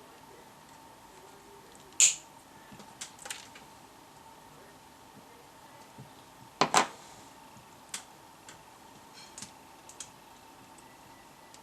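Scattered sharp clicks and knocks of handling, about eight in all: the loudest about two seconds in and a close pair of loud ones near the middle. A faint steady high whine runs underneath.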